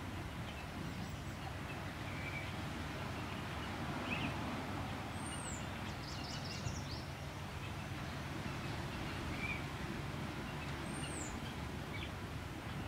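Steady outdoor background noise with a low rumble. A few short, high bird chirps come about five and eleven seconds in.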